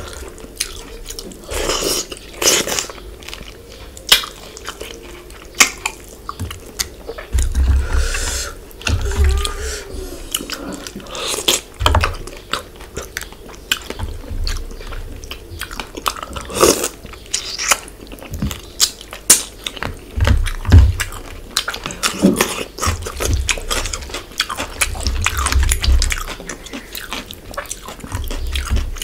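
A person chewing and biting fish head curry with the mouth closed. Through it come wet squishing sounds of fingers picking the fish head apart in the gravy, and many scattered sharp clicks.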